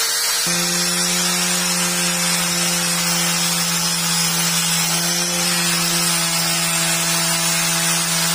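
Maktec angle grinder running steadily with a buffing wheel fitted, the spinning wheel rubbing against a knife handle to smooth it. The motor's pitch steps up slightly about half a second in.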